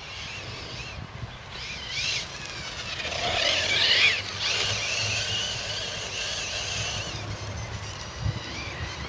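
Electric Losi 8ight TE truggy's Tenshock X812L brushless motor and 16/45 gearing whining, the high pitch rising and falling as the throttle is worked. It is loudest about four seconds in, then settles into a steadier whine.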